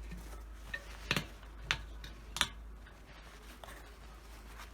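A few light, sharp clicks and taps from handling small metal split pins while paint thinner is worked onto them, about four within the first two and a half seconds, over a low steady hum.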